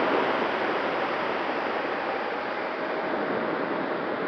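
Steady rush of airflow over the onboard camera of an Avionik B-08 F5B glider in fast flight, growing a little quieter over the first couple of seconds.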